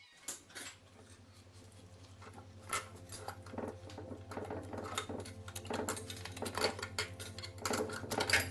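Metal tools and engine parts clinking and tapping against each other in irregular light knocks during an engine teardown, loudest near the end.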